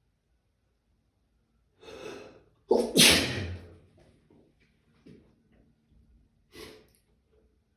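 A person sneezing once, loudly, after a drawn-in breath, as part of an allergy sneezing fit. A short breath follows near the end.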